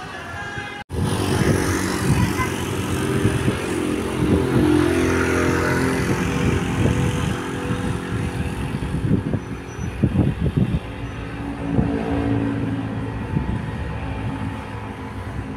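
A large bus close by with its engine running loudly and steadily, after short musical tones that break off abruptly about a second in.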